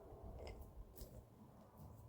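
Near silence: faint low rumble with two faint clicks, about half a second and one second in.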